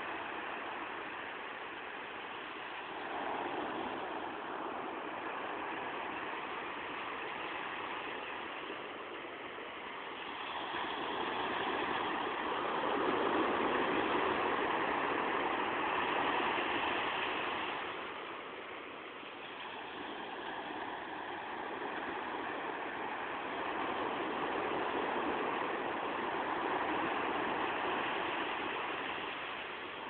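Ocean waves washing onto a beach at night, a steady rushing that swells and fades slowly, loudest in a long surge through the middle.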